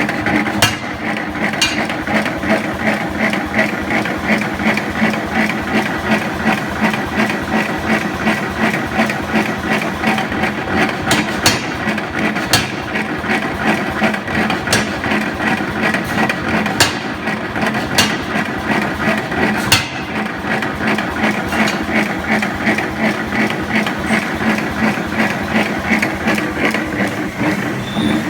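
Forging hammer striking metal in a rapid, steady rhythm, with a few sharper separate clangs.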